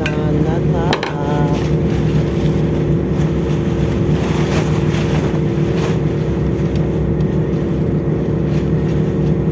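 Steady drone of a ship's engine and machinery, a constant low rumble with several unchanging hum tones.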